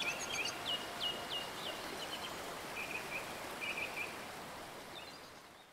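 Outdoor woodland ambience: a steady soft hiss with birds chirping, a quick run of short chirps at first and a few fainter ones later, fading out at the end.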